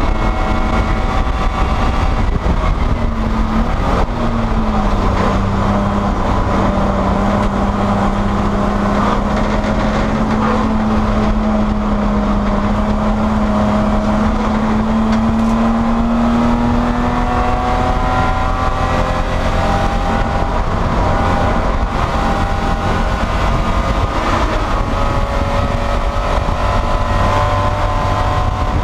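BMW E30 Spec E30 race car's engine pulling hard at racing speed, heard from inside the cabin over road and wind noise. Its note drops about four seconds in, then climbs slowly through a long pull and rises again near the end.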